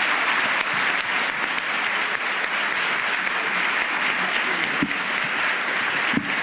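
Audience applauding steadily: many hands clapping in a large hall.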